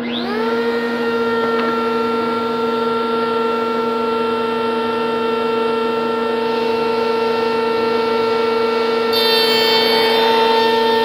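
Router in a horizontal router table switched on. Its motor spins up with a quick rising whine and settles into a steady high whine over a lower steady hum. About nine seconds in, the bit starts cutting the edge of a wooden frame piece to leave a centred tongue, adding a rougher, higher cutting sound.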